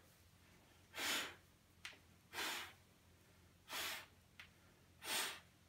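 A man breathing out forcefully through the mouth in even puffs, four in all, about one every 1.3 seconds, with short quick breaths in between. Each breath out comes as a knee is drawn in during a Pilates single-leg stretch, with a brief breath in at the switch of legs.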